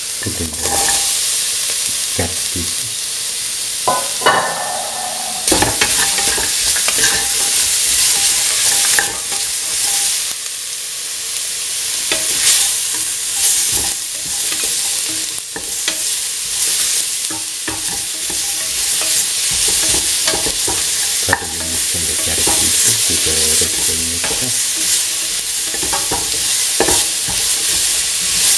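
Chopped vegetables (bell pepper, garlic, carrot) sizzling in hot oil in a metal pan while being stirred, with a steady frying hiss and frequent short clicks and scrapes of the spoon against the pan. The sizzle grows fuller about five seconds in.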